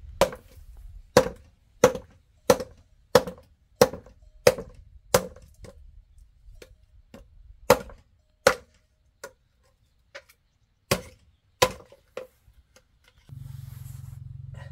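Chopping with a blade: eight sharp, evenly spaced strikes at about one and a half a second, then slower, irregular chops and lighter taps. Near the end a steady low hum starts.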